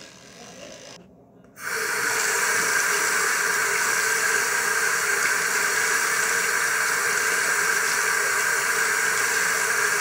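Bathroom tap turned on about a second and a half in, water running steadily into the sink.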